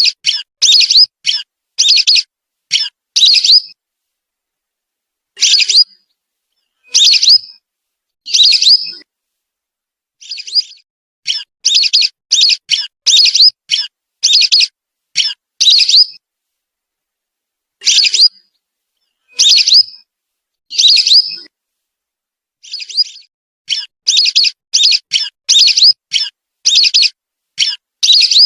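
Lesser whistling ducks calling: short, high whistled notes in quick runs, broken by pauses of one to two seconds, with silence between calls. This is a recorded lure call for attracting the birds.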